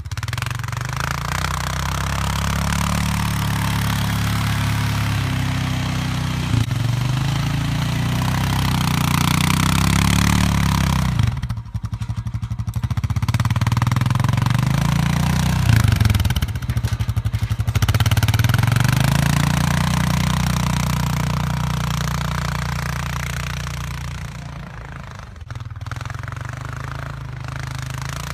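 Honda Foreman 450 ATV's single-cylinder engine working hard under load, pushing a snow plow blade through deep snow, its engine speed rising and falling over a steady hiss. Twice, about twelve and seventeen seconds in, it drops to a slow putter for a second or two before pulling again.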